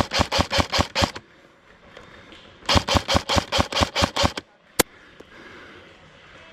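Airsoft gun firing rapid strings of shots, about seven a second: one string ending about a second in, a second string of about ten shots a little later, then a single shot.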